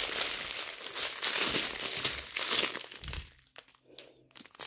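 Plastic bags of diamond painting drills crinkling as they are picked up and handled; the crinkling dies down about three seconds in.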